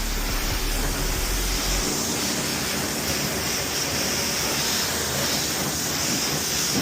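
Pressure washer spray gun blasting a steady jet of water, a continuous hiss of spray.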